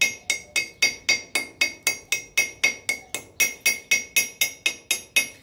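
Steel chipping hammer striking a 6010 stick-weld bead in a steady run of about four blows a second, each a sharp metallic clink with a short ringing tone, knocking the slag off.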